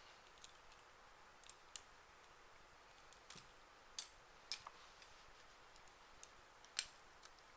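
Faint, irregular small clicks and taps of RC helicopter rotor-head parts being handled and fitted together, about a dozen in all, the sharpest near the end.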